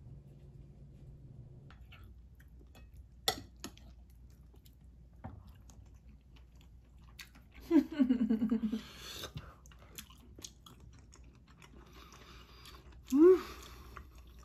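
People eating curry and rice: chewing and small spoon clicks against the bowls. Two short vocal sounds without words stand out, the loudest a second or so long about halfway through and a shorter rising one near the end.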